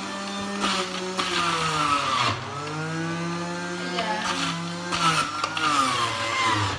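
Electric centrifugal juicer's motor running as carrots are pushed down its feed chute, its hum sagging in pitch and recovering a few times as the cutter grinds through the carrots.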